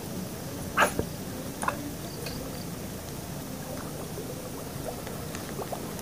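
Baitcasting reel being cranked to wind in line over a steady outdoor hiss. Two sharp clicks stand out, a little under a second in and just under two seconds in, with a few faint ticks near the end.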